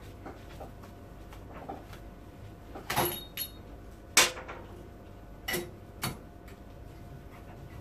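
A handful of sharp metallic clinks and knocks, about five spread over a few seconds, the loudest a little after four seconds in: copper pipe and metal tools being handled and set up at a bench vice.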